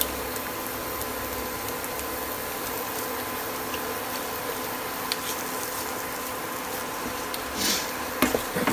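Grated beetroot and a freshly added egg frying in a nonstick pan with a steady sizzle. There is a sharp crack at the start as the egg is broken, and a wooden spatula scrapes and knocks in the pan near the end.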